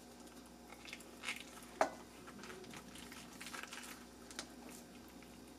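Faint soft squishing and rustling of a boiled cabbage leaf being rolled by hand around a meat filling on a plate, with a few light clicks.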